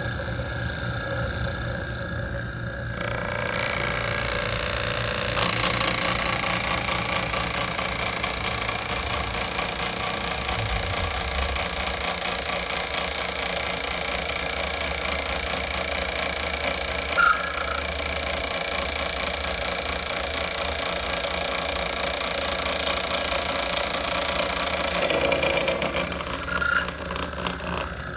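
Knee mill table power feed motor running as it drives the table: a steady mechanical whine with several tones. It steps up in pitch and loudness about three seconds in and again a couple of seconds later, then changes near the end.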